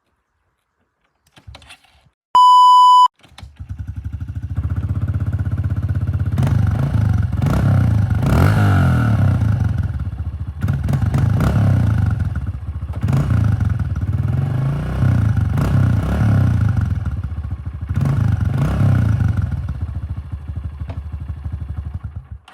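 A short, loud electronic beep about two and a half seconds in. Then a Honda CRF125F big wheel dirt bike's 125cc air-cooled four-stroke single starts up and runs, revved up and let back down to idle several times.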